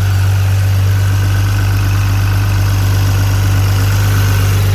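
BMW B58 turbocharged inline-six idling steadily on its newly fitted big single turbo, shortly after its first startup with the kit.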